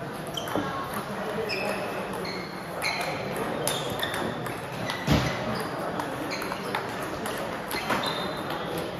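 Table tennis balls clicking off tables and paddles in a large echoing hall, irregular sharp ticks from a rally and other tables. There is a louder thud about five seconds in.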